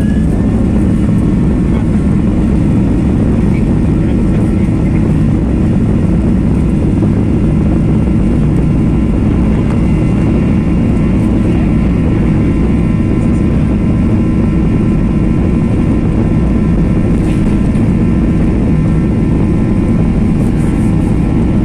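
Boeing 737-800's CFM56 turbofan engines at takeoff thrust during the takeoff roll, heard inside the cabin: loud, steady engine noise with several steady whining tones above it.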